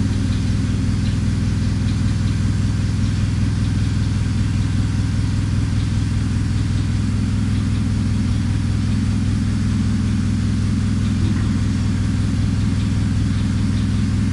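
Yale 4,000 lb-capacity forklift's engine idling steadily.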